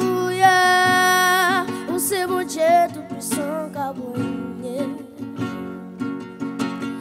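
A young boy singing into a microphone, holding one long note that ends in vibrato, with an acoustic guitar strummed behind him. After about three seconds the voice mostly falls away and the guitar strumming carries on.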